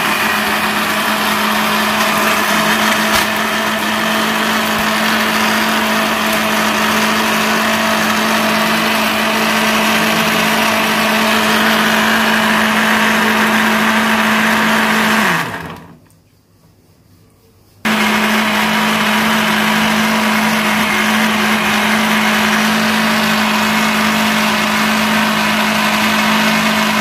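Super Asia BL-9200 stand blender running steadily as it blends mangoes, milk and ice into a shake. About halfway through it is switched off and the motor winds down with a falling pitch. A couple of seconds later it starts again suddenly and runs on.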